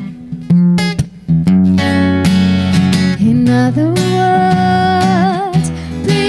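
Music: an acoustic guitar plays chords. About halfway through, a note slides up and is held, with vibrato near the end.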